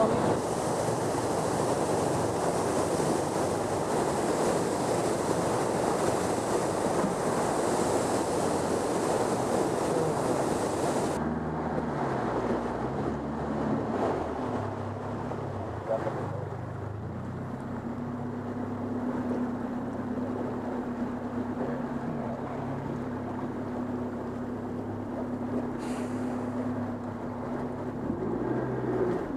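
Loud rushing water of the falls with wind buffeting the microphone. About eleven seconds in it changes abruptly to a steady low motor hum, the boat's engine running, with the water quieter behind it.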